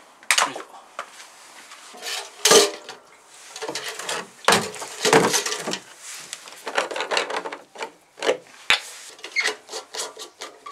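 Kerosene cans being handled on a tiled floor: a plastic jerry can and a small metal tank shifted, scraped and knocked, with caps twisted off, making an irregular run of scrapes and rasps. One sharper knock comes about two seconds before the end.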